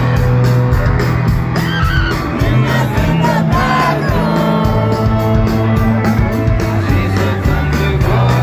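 A live rock band playing loud and fast, with electric guitars, bass and a steady driving drum beat, heard close up from the crowd. Voices sing and yell along over it.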